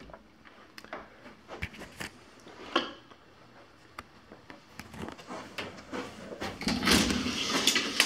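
Scattered light clicks and knocks, then a louder rattling, scraping noise over the last second or so as a wooden closet door is opened.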